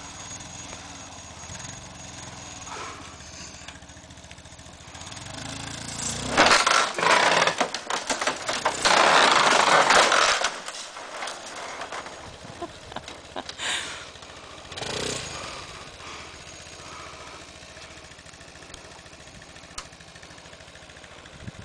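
Linhai Allroad 300 ATV's single-cylinder engine running steadily while it pulls down a wooden shed wall. About six seconds in the wall gives way with a few seconds of loud cracking and crashing timber and corrugated metal sheeting, followed by a couple of smaller knocks as it settles.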